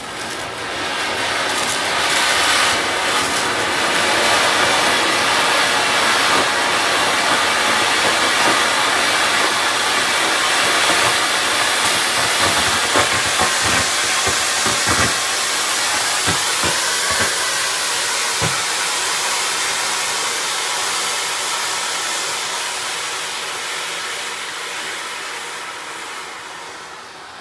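Flower-pot (anar) fountain firework spraying sparks with a loud, steady hiss, broken by a few sharp cracks around the middle. The hiss dies away toward the end as the fountain burns out.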